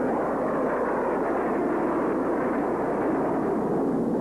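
Steady noise of a jet aircraft passing overhead, an even rushing roar with no change in level.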